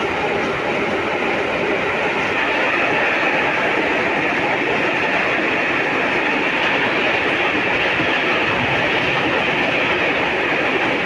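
Freight train's wagons rolling past at speed without stopping, covered wagons followed by empty flat wagons: a loud, steady rolling noise of steel wheels on the rails.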